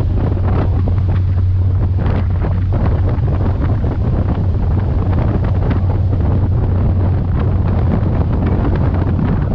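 Strong wind buffeting the microphone aboard a moving ferry, over a steady low drone from the boat's engines.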